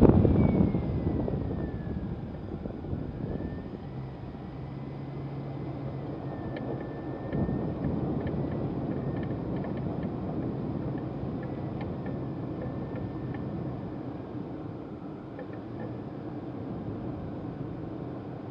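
A vehicle engine running steadily with a low hum and a faint high whine, after a louder rush of noise at the start that fades over about three seconds.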